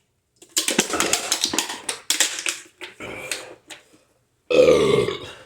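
A man belching after shotgunning a 24-oz can of drink. First comes a long, crackly run of belches lasting about two seconds, then a few shorter ones, and near the end one loud, deep belch.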